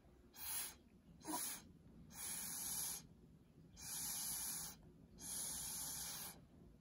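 Breath blown hard in three short puffs, then three longer blows of about a second each, onto wet acrylic pour paint to try to open up cells.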